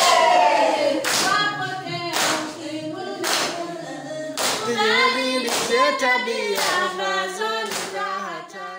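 A group of voices singing together unaccompanied, with hand claps in time about once a second. The singing fades out near the end.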